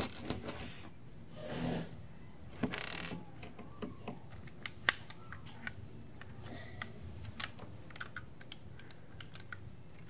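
Plastic Lego bricks of a puzzle box clicking and knocking as the box is handled and its parts slid and pulled. The light clicks come at irregular intervals, with two short scraping rustles about two and three seconds in.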